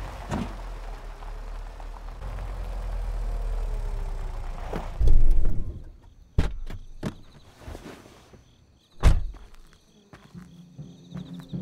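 A car running slowly over a dirt track, a low rumble with a heavy thud about five seconds in, then it falls away to a few sharp knocks and thuds over faint chirping crickets.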